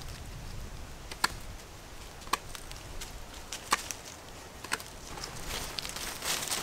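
Knife carving a point on a wooden stake: four sharp cutting strokes into the wood, roughly one a second. Near the end, rustling footsteps in dry leaves.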